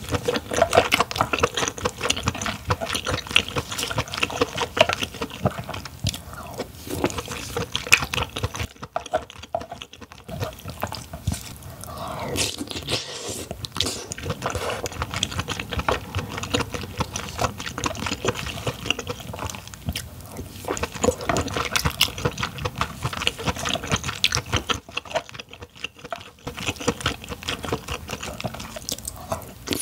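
Wet, close-up chewing, slurping and squishing of king crab meat, a dense run of small smacks and clicks, with two brief lulls, one about a third of the way in and one near the end.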